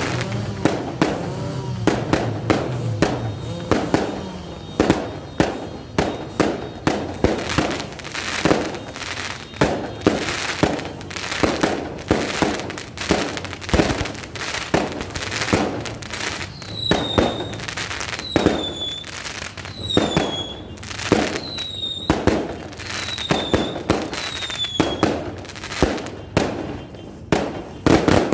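Fireworks going off in quick succession, a dense run of sharp bangs and pops. About halfway through, a series of about six short high whistles sounds, each dropping a little in pitch, roughly one every second and a half.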